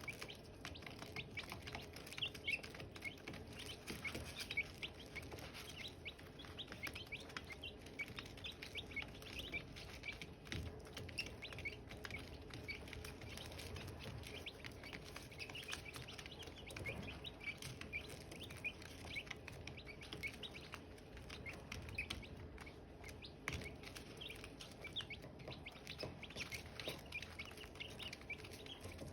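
Silkie chicks peeping: many short, high chirps overlapping in a steady stream.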